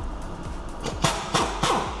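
A series of sharp metallic knocks, roughly a third of a second apart, starting about a second in, over steady background music.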